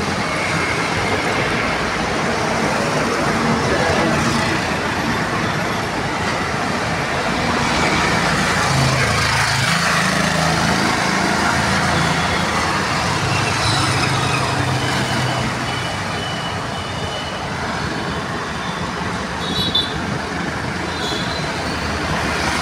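Steady street traffic on a city road: engines of motorbikes, auto-rickshaws and cars running and passing under a constant rush of road noise, with an engine hum swelling in the middle and a couple of brief high chirps later on.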